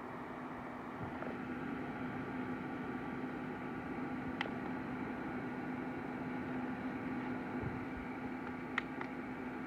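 Douhe fan heater running: a steady blowing whir with a constant hum, growing slightly louder about a second in. Two short sharp clicks sound over it, one near the middle and one near the end.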